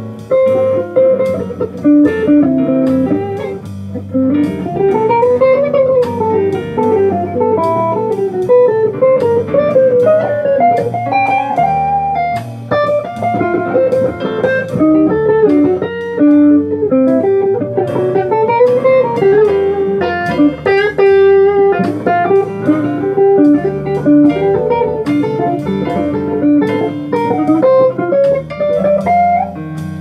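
Electric guitar, a single-cutaway solid body, playing a jazz solo in fast single-note lines, with runs that climb and fall back.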